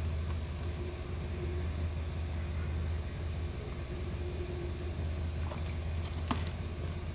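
A steady low hum, with a few faint crackles and a couple of sharp ticks near the end as a cellophane-wrapped box is turned in the hands.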